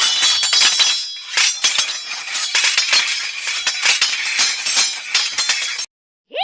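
Dense, continuous clinking and clanging of metal on metal, like a sword-fight sound effect, cutting off suddenly near the end. A loud pitched cry starts just before the end.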